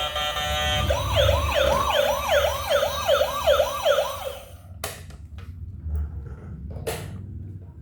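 Toy emergency-vehicle siren yelping: a steady tone, then quick rising wails, about two or three a second, that stop about halfway through. A couple of sharp clicks follow.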